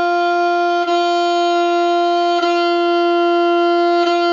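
A saxophone mouthpiece and neck, without the body, blown as a single steady note, briefly re-tongued three times. The mouthpiece is taken about two-thirds of the way into the mouth, the position that gives the proper sound rather than a harsh or weak, windy one.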